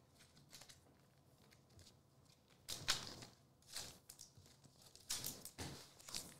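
Faint handling of trading cards and a foil card pack: a few brief, soft swishes and scrapes of card stock and foil, starting about three seconds in and again near the end.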